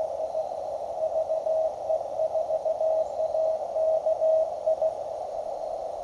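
Morse code (CW) from a Mountain Topper (MTR) transceiver: a single steady tone keyed in dots and dashes for about four seconds, over the radio's narrow band of receiver hiss.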